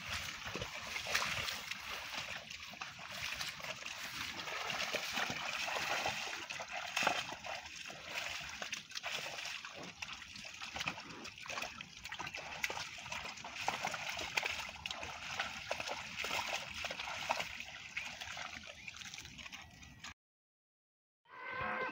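Cattle hooves sloshing and splashing through shallow muddy water, an irregular run of wet steps over a continuous watery noise. The sound cuts out entirely for about a second near the end.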